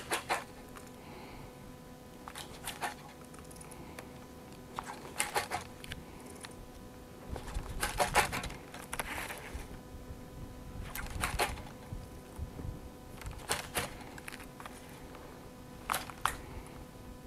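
Scattered sharp clicks and ticks of fishing tackle in use, reel and rod being handled while jigging a spoon, some coming in quick pairs, over a faint steady hum. A soft low rumble comes in briefly about eight seconds in.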